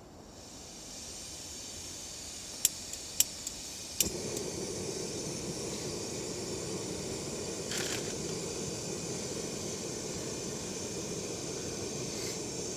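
Gas camping stove being lit: a soft hiss of gas, three sharp igniter clicks, then the burner catches about four seconds in and runs with a steady hiss.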